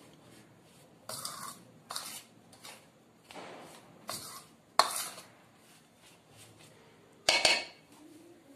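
Metal spoon scraping and clinking against a stainless steel bowl as dry flour is stirred, in irregular strokes, with a louder clatter near the end.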